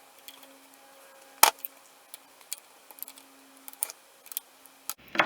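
Scattered metallic clicks and taps of a spanner and small hand tools working on the Suzuki GT380's carburettor bank and linkage, with one sharper click about a second and a half in. A faint steady hum lies underneath.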